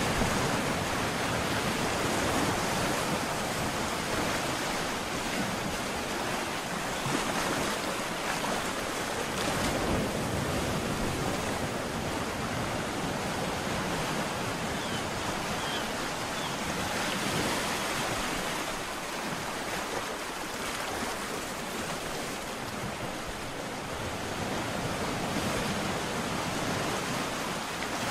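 Ocean surf: waves breaking and washing ashore in a continuous rush, swelling and easing a little in loudness.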